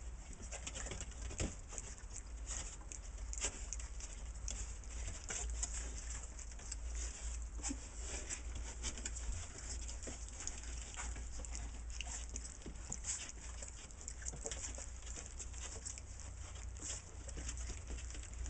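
Four-week-old blue-nose pit bull puppies moving about a wooden pen, their paws and claws pattering and scratching on the floor in many small, irregular clicks.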